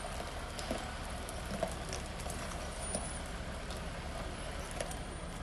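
Fire engine running with a steady low rumble, with a few sharp knocks and clicks over it.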